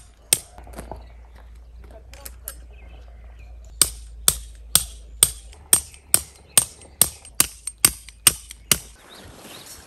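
A hammer driving a metal tent peg: about a dozen sharp, ringing strikes, roughly two a second, starting a little before halfway and stopping near the end, after a few lighter knocks and rustling.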